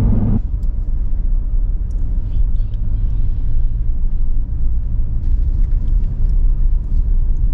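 Steady low rumble of a running engine, with a faint steady hum, mixed with wind noise on the microphone, most likely a bass boat's outboard motor under way.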